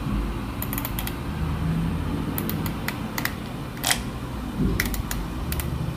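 Clicks and taps on an Acer laptop, coming in small irregular clusters over a low steady rumble.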